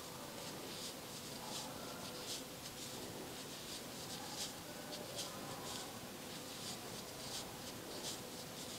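Crochet hook and wool yarn rustling softly as stitches are worked, a light scratch every half second to a second over a low steady hiss.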